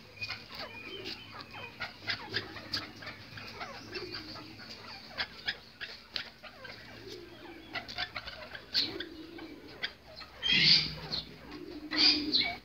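Aviary birds chirping in many short, quick calls, with low pigeon coos every second or two underneath. A louder sound comes about ten and a half seconds in.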